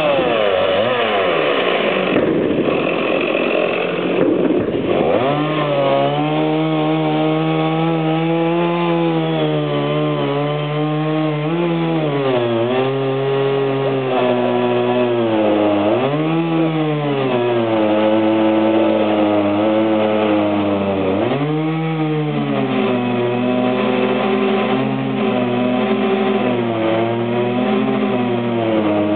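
Chainsaw engine running. It is high and ragged at first, then settles to a steady idle about five seconds in, with short throttle blips that raise and drop its pitch every few seconds.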